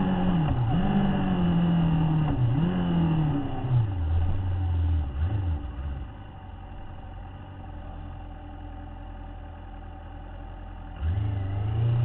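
Motorcycle engine heard from the riding bike's own camera, revving and dipping through two quick gear changes, then slowing to a lower note. It runs quietly for several seconds, then accelerates again near the end.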